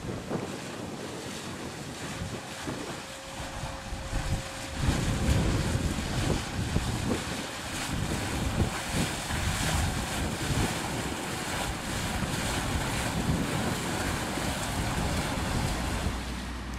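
Gusty wind on the microphone, heavier from about five seconds in, over the churn of water from a passing hire motor cruiser.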